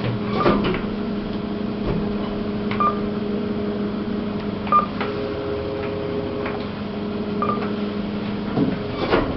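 KONE EcoDisc gearless lift travelling, with a steady hum from the drive and three short beeps along the way. The hum stops about a second before the end, followed by knocks as the car arrives.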